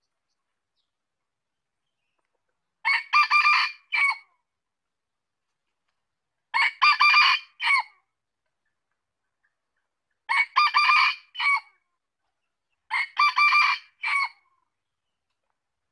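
Red junglefowl rooster crowing four times, about every three and a half seconds. Each crow is short and clipped, a few quick notes ending in a brief separate final note.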